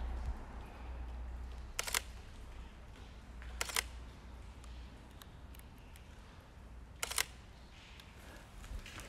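Three camera shutter clicks a few seconds apart, the middle one doubled, over a steady low rumble.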